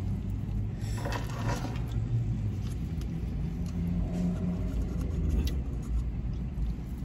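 Steady low hum of a parked car's engine idling, with brief rustles and clinks as a plastic food cup and spoon are handled and stacked bracelets knock together.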